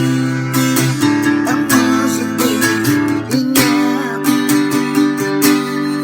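Music: acoustic guitar strumming chords in a steady rhythm, with a wavering melody line over it.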